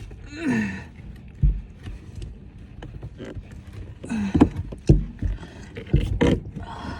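Irregular plastic clicks, knocks and scraping, with a couple of short falling creaks, as a brittle, sun-damaged rear-deck speaker cover is pried and worked loose by hand.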